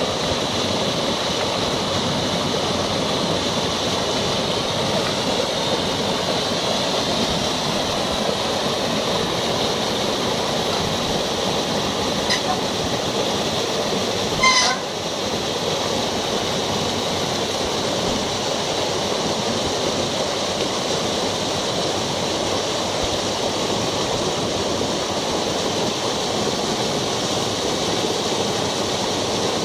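Steady rushing of a fast mountain stream pouring over rocks and logs, with a single sharp knock about halfway through.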